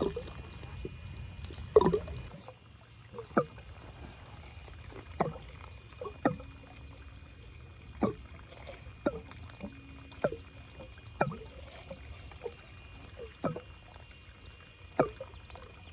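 Water dripping into standing water, single drops plinking about every one to two seconds. A low steady hum underneath stops about two seconds in.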